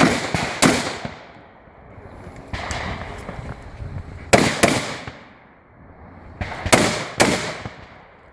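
Rifle shots in three quick pairs, the two shots of each pair about half a second apart, each shot trailing off in an echo.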